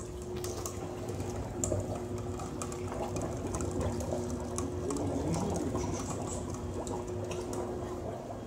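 Water churning and bubbling inside the clear acrylic column of Slobodian's fluid-air displacement gravity generator as its chain of cups turns. The roller chain and cups click and rattle over a steady machine hum.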